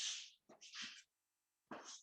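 Chalk scraping on a blackboard in a few short strokes.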